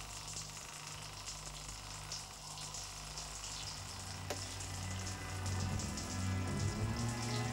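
Steady hiss of a shower running. A single faint click comes about four seconds in, and a low, sustained music drone swells in from about five seconds in.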